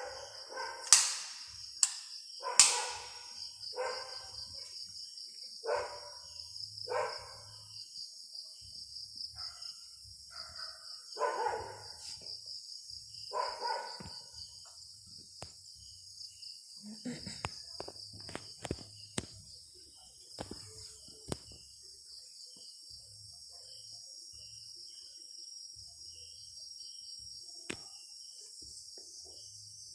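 A dog barking again and again, some barks loud and close, over a steady high chirring of night insects. Later come scattered sharp clicks and knocks.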